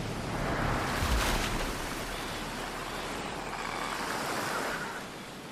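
Ocean surf breaking and churning, with a louder wave surge about a second in.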